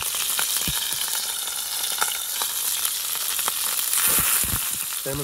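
Sockeye salmon fillets sizzling in hot oil in a skillet: a steady hiss with scattered crackles.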